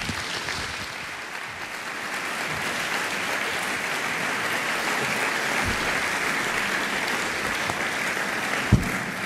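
Audience applauding steadily, building over the first couple of seconds and starting to die away at the end. A short low thump comes just before it fades.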